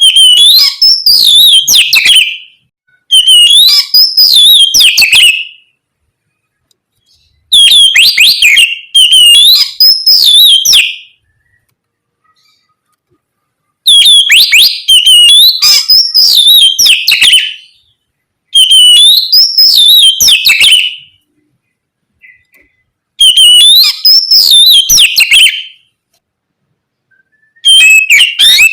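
Oriental magpie-robin (kacer) singing loud whistled song phrases, each two to three seconds long, with notes sweeping up and down. The phrases repeat about seven times, separated by short pauses.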